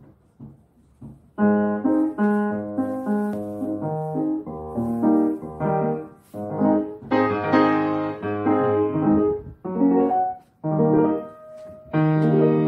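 Baby grand piano, freshly tuned and repaired, played in loud full chords as a test. The playing starts about a second and a half in, with brief pauses between phrases.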